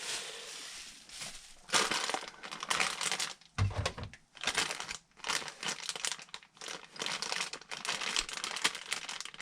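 Plastic packaging crinkling and rustling in irregular bursts as it is handled, with short pauses between.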